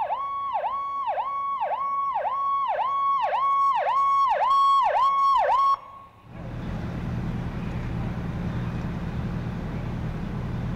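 Electronic yelp siren of an approaching fire apparatus, sweeping down and up about twice a second and growing louder, cutting off abruptly about six seconds in. After it, a steady low engine running at the fire scene.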